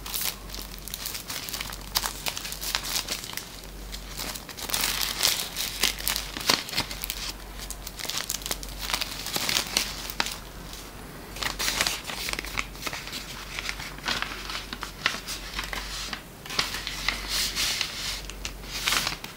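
A paper envelope and a clear plastic sleeve rustling and crinkling in the hands, with many sharp crackles, as an inner envelope is handled and a greeting card slid out of it.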